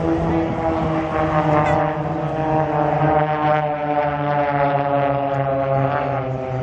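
Propeller engines of several Extra EA-300 aerobatic aircraft (six-cylinder Lycoming piston engines) flying past in formation: a loud, steady drone with a clear pitch that sags slightly about six seconds in as they pass.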